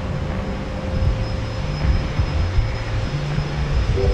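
Jet engines of an arriving Boeing 737 MAX 8, CFM LEAP-1B turbofans, running with a steady low rumble and a faint high whine.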